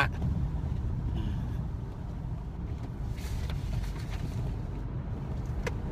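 Steady low rumble of a car's engine and tyres heard from inside the cabin while driving, with a short click near the end.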